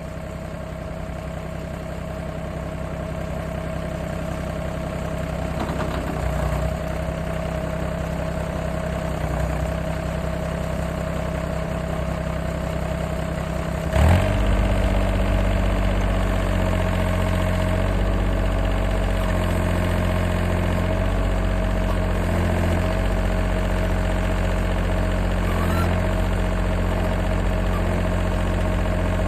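John Deere tractor engine running steadily, with a steady whine over it. About halfway through comes a sharp clunk, and from then on the engine is louder, with more low rumble.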